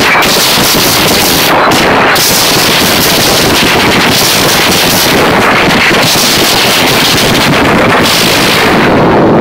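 Loud live band and crowd at a heavy show, overloading the phone's microphone so that everything comes through as a harsh, crackling distorted wash with no clear notes or voices.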